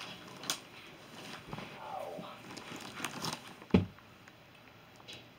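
Plastic wrap and cardboard around a rolled-up latex mattress rustling and crinkling as it is pulled and handled, with several knocks and one loud thump a little under four seconds in.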